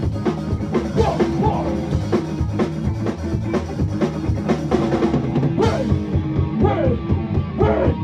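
Live ska-core band playing loud: a fast drum-kit beat under electric guitars.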